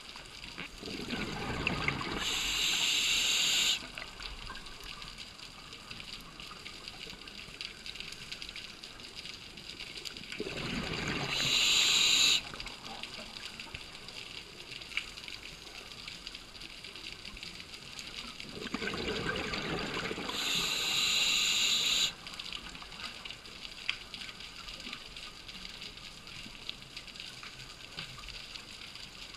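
Scuba diver breathing underwater through a regulator: three long breaths about eight seconds apart, each a rush of air and bubbles that swells with a bright hiss and cuts off sharply.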